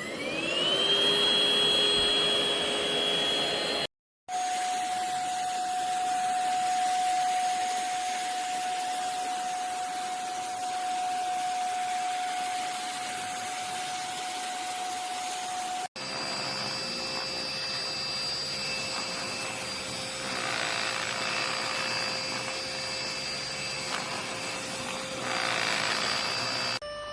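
Xiaomi LPMY-017 PRO cordless dust mite vacuum cleaner switched on, its motor whining up to speed and then running steadily. The sound breaks off abruptly twice, about four seconds and sixteen seconds in, and each time comes back with a steady whine at a different pitch.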